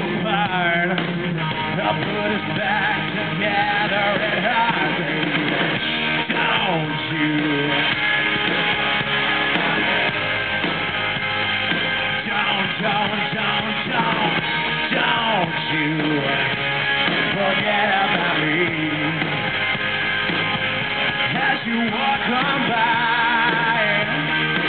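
Live rock band playing loud and without a break, electric guitars to the fore.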